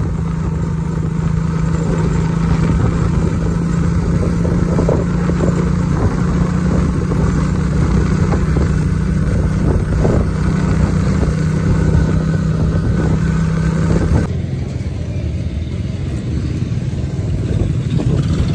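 Suzuki Smash underbone motorcycle's small single-cylinder four-stroke engine running at a steady cruise, with a steady hum and road and wind noise. About fourteen seconds in, it cuts off abruptly to quieter, rougher background noise.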